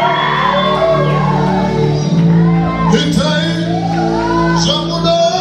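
Live worship music: sustained keyboard chords under voices singing and calling out.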